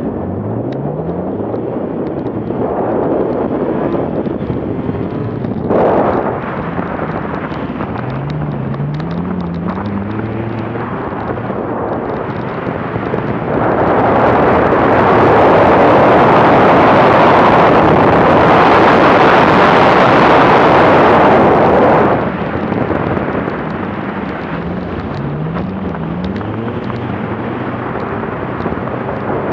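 BMW car engine pulling hard on snow, its note repeatedly climbing and dropping back as it goes up through the gears. A loud rushing hiss swamps it for about eight seconds past the middle, with wind and snow noise on the hood-mounted microphone.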